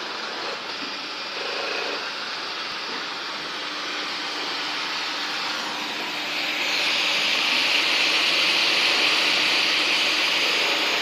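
Industrial machinery running with a steady noise and a faint low hum; the noise gets louder and brighter about six and a half seconds in.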